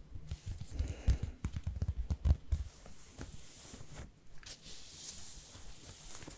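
Close-miked rustling with a quick run of soft low thumps and knocks in the first two and a half seconds, then fainter scattered clicks.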